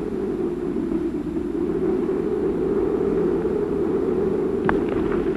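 A steady rumbling drone of noise, with a couple of sharp crackles near the end.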